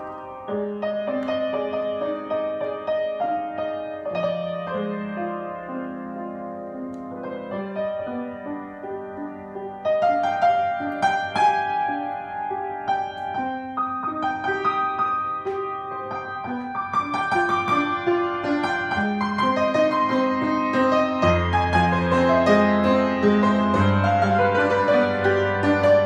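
Grand piano played solo. The music gets louder about ten seconds in, and deep bass notes come in about two-thirds of the way through.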